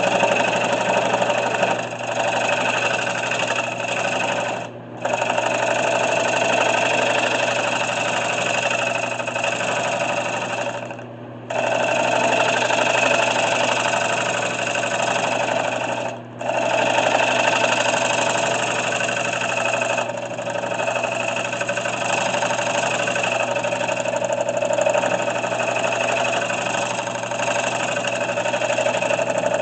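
Turning tool cutting a spalted maple tray spinning on a 1981 Delta wood lathe: a steady scraping hiss of the cut over the lathe motor's hum, dropping away briefly three times.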